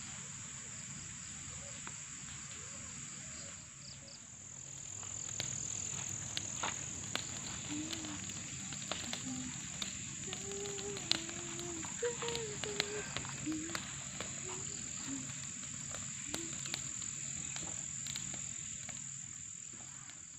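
Steady chorus of crickets, a continuous high ringing drone, with the crackle and snapping pops of a small fire of dry grass and twigs starting about five seconds in.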